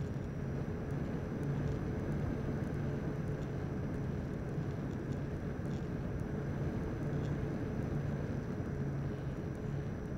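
Electric radio-controlled model airplane heard from its own onboard camera in flight: a steady rush of wind and propeller noise, with a low motor hum and a thin high whine that hold steady throughout.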